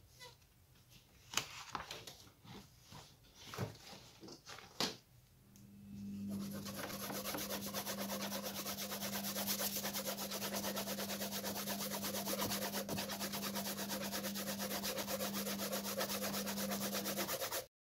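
Pencil shading rapidly back and forth on sketchbook paper: a fast, even scratching that starts about five seconds in after a few handling clicks and page sounds, with a low steady hum under it, and cuts off suddenly near the end.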